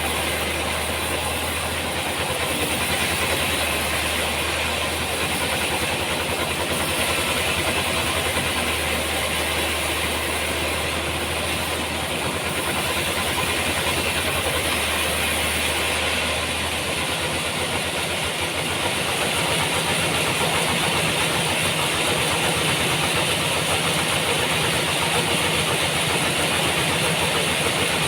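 Sawmill machinery running steadily: an engine hum under a continuous hiss. The low hum changes pitch about two-thirds of the way through.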